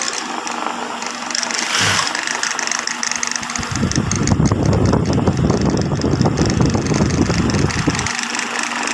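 High-speed sewing machine: the motor hums steadily, and from about three and a half seconds in until about eight seconds the machine runs fast, stitching with a dense rapid rattle, then stops.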